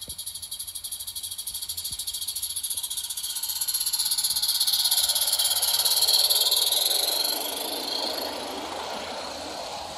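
A small live-steam garden-railway locomotive chuffing quickly with fast, even, hissy exhaust beats as it hauls its coaches past. It gets louder towards the middle, as a lower rumble of wheels on the track swells with the passing train, then eases off near the end.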